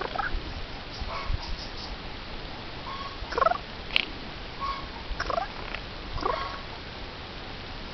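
A Eurasian jay close to the microphone giving a series of short, varied calls, some sweeping down or up in pitch, with a sharp click about four seconds in.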